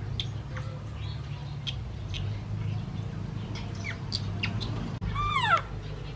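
Baby macaque squeaking with many short, high chirps, then giving one louder squeal that falls in pitch near the end, over a steady low hum.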